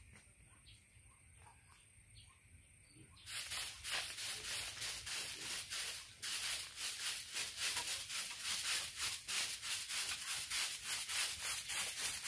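Quick, even rasping strokes of a hand tool working bamboo, about three or four strokes a second, starting about three seconds in with a short break partway through.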